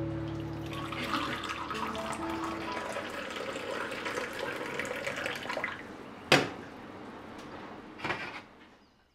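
Tea pouring in a thin stream into a ceramic cup, splashing as the cup fills. A sharp clink about six seconds in and a softer knock near eight seconds, then the sound fades out.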